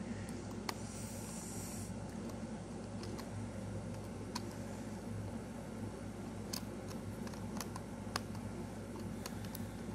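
Several light, scattered clicks of small plastic parts as fingers fit a piece onto a model locomotive's truck, over the steady hum of an air conditioner.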